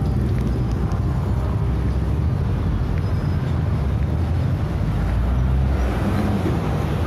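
City street traffic: a steady low rumble of engines, swelling as a car goes by near the end.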